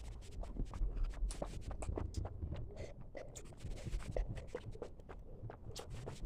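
A child drinking water in gulps, with many small, irregular clicks and knocks.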